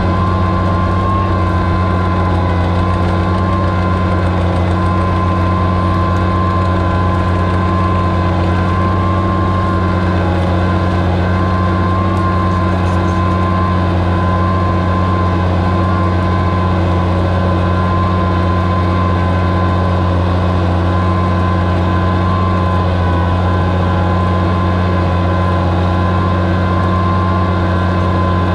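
Oliver 77 tractor's six-cylinder engine running steadily under load while pulling a rooster comb plow through the soil, with a steady whine above the low engine note.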